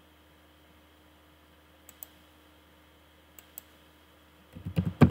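Computer mouse clicks, two quick pairs, then near the end a short cluster of louder keyboard keystrokes, the last one the loudest.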